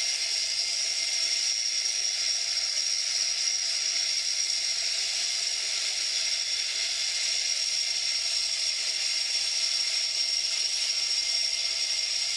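Jet aircraft engine running steadily: a constant hiss with a high, steady whine over it.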